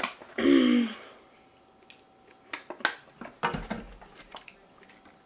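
Eating sounds at a table: chewing, and a plastic fork clicking and scraping in an aluminium foil takeout tray, with a few sharp clicks and a dull knock around the middle. About half a second in there is a short, loud voiced sound.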